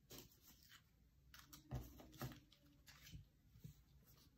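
Faint taps and paper rustles as cut paper-plate pieces are set down and slid on a board, with a couple of slightly louder taps about two seconds in.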